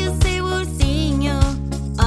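Cheerful children's song: a sung melody over held accompaniment notes and a steady drum beat, about one beat every 0.6 seconds.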